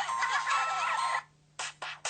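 A Samsung SPH-V5100 mobile phone playing one of its built-in ringtone or sound-effect tones, a busy electronic melody of quick warbling chirps. It cuts off about a second in, followed by a short gap and two brief blips.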